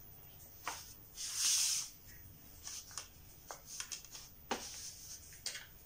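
Light handling sounds of a folded sheet of puff pastry dough being lifted off a floured counter and laid on a plastic tray: a soft brushing rustle about a second and a half in, and a few light taps.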